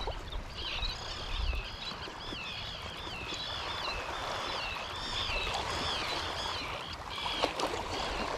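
A flock of seabirds calling over the water: many high, wavering calls overlapping. Behind them, a steady wash of surf and low wind rumble on the microphone.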